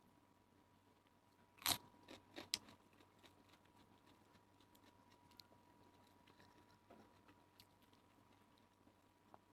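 Faint sounds of a person eating: quiet chewing with a few sharp crunches and clicks bunched together about two seconds in, then only small scattered clicks.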